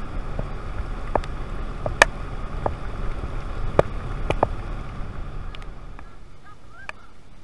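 Small aluminium boat running at speed under outboard power: a steady low engine rumble with wind noise, and a few sharp knocks through the hull. About six seconds in it drops to a much quieter background.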